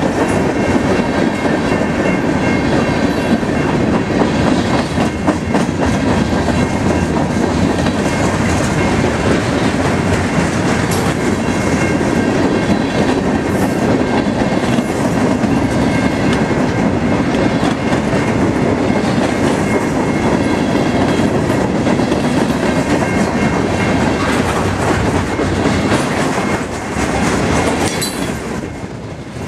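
Freight cars of a Norfolk Southern train rolling past close by: a steady, loud rumble of steel wheels on rail, with a clickety-clack as the wheels cross rail joints. The sound eases slightly near the end.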